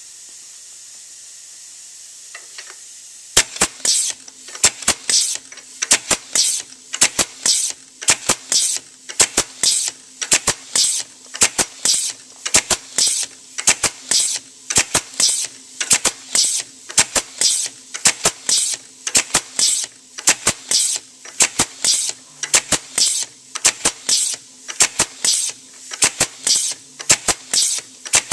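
Pneumatic automatic tagging machine with a fine tagging gun cycling. A steady air hiss gives way about three seconds in to a fast, even run of sharp clicks and short air-exhaust bursts, about one and a half cycles a second, over a low steady hum.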